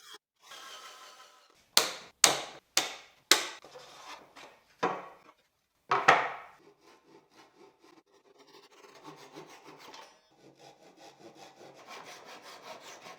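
Wooden workpieces being handled: a run of sharp wooden knocks in the first half, then faint rubbing and scraping of wood.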